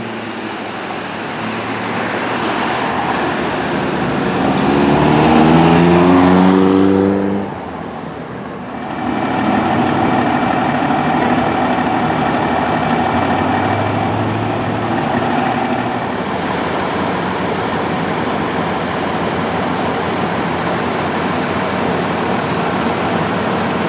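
Fire apparatus going by on a response: a long air-horn blast, slightly rising in pitch, from about four and a half to seven and a half seconds in. After a brief dip, steady vehicle and road noise follows.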